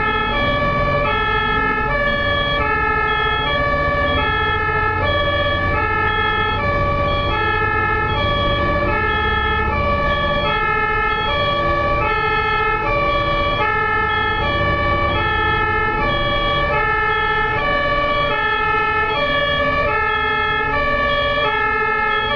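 German ambulance two-tone siren (Martinshorn) alternating evenly between a high and a low note, each held for about two-thirds of a second, with a low rumble of traffic beneath.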